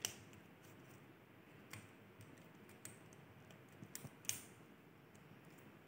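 Near silence with a handful of faint, scattered clicks as a rubber band is wound around the end of two wooden popsicle sticks, the loudest a little after four seconds in.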